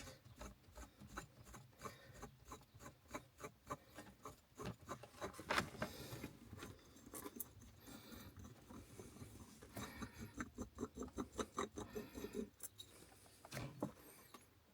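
Hands working a leather shift boot and its plastic console trim loose around the gear lever: rubbing and scraping with many small clicks, and a sharper snap about five and a half seconds in and another near the end.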